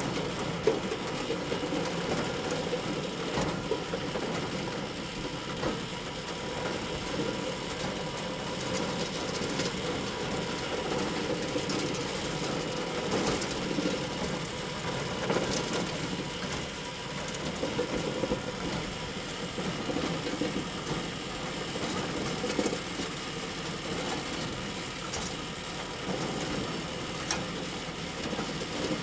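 Hay bale elevator running: a steady mechanical clatter from the conveyor chain and its drive, with a few sharper clicks here and there.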